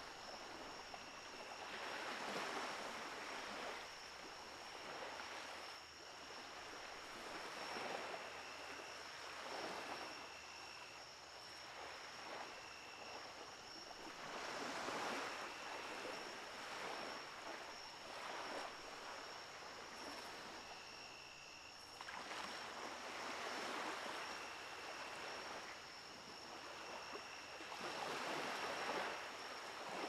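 Surf washing onto a sandy beach at night, each wave swelling and falling back every few seconds. A thin steady high tone and short high chirps run underneath.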